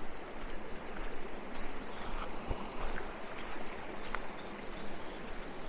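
Steady rushing of a shallow stream flowing over rocks, with a few faint ticks.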